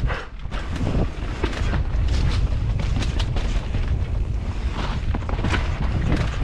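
Wind buffeting a GoPro's microphone during a fast downhill mountain-bike run, a heavy steady rumble, with the bike's tyres, chain and frame clattering over a rough dirt trail in many sharp knocks.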